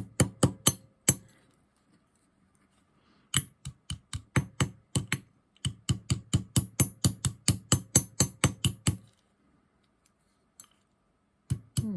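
Runs of quick, light taps of a Whammer texturing hammer on annealed argentium silver earring blanks, about four strikes a second with short pauses between runs and a thin metallic ring: the hammer face is texturing the soft metal.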